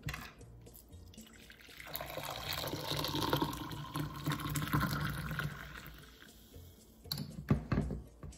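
Brewed coffee poured from a glass French press into a ceramic mug: a steady splashing pour lasting about four seconds. A few sharp knocks follow near the end.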